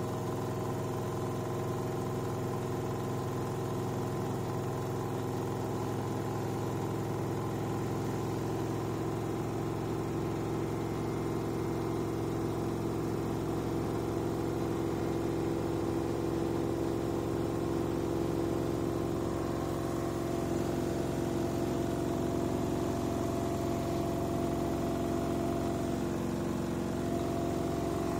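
Front-loading washing machine draining with water still in the drum: a steady hum from the drain pump and motor, growing a little louder partway through.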